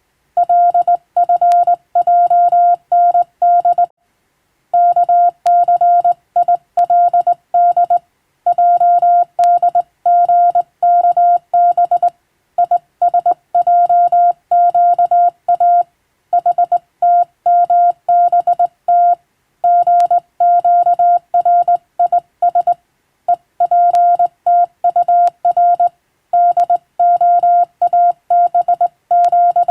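Morse code (CW) sent as a single steady beep tone, keyed on and off in rapid dots and dashes. It is grouped into letters and words by short gaps, with a longer pause about four seconds in.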